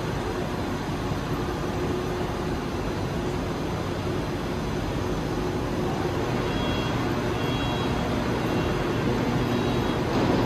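Helsinki metro train standing at an underground platform with its doors open, its equipment giving a steady hum over station ambience. From about six seconds in, a faint short high beep repeats about once a second.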